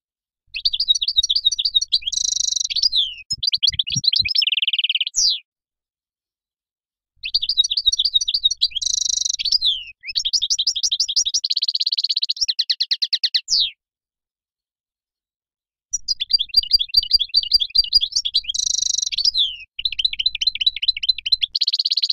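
European goldfinch singing: three long phrases of rapid, high twittering notes mixed with buzzy trills, separated by silent gaps of about two seconds.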